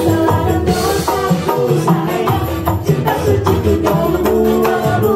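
Live dangdut koplo band playing at a brisk, steady beat, led by kendang hand drums with tambourine-like jingles. Bass and other instruments play underneath, and a singer's voice carries the tune through microphones and a PA.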